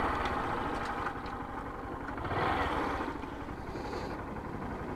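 Honda motorcycle running at low speed on a loose dirt road, engine and tyre noise blended into a steady rush, swelling slightly partway through.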